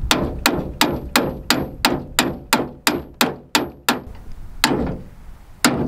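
Hammer striking the steel yoke of a brush hog's PTO driveshaft U-joint to drive out a bearing cap. About a dozen sharp metal-on-metal blows come at roughly three a second, then two slower ones near the end.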